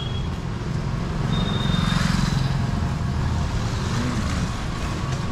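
Road traffic rumbling steadily, with one motor vehicle passing close and swelling loudest about two seconds in.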